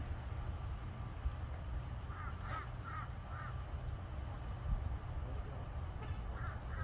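A bird calling in short repeated calls: four about two seconds in and three more near the end, over a steady low rumble of wind on the microphone.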